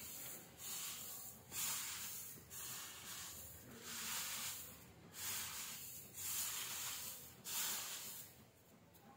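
Sesame seeds being tipped into a pan of melted jaggery, a hissing rustle in strokes about once a second.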